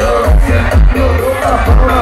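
Loud live dance music from a carnival sound truck's PA, with a steady heavy bass beat and a male singer's voice over it.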